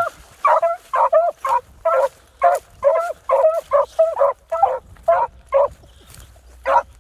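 Beagles baying in a quick run of short, yelping barks, two or three a second, as they give tongue on a rabbit's scent line; the run stops about three-quarters of the way through, with one more bark near the end.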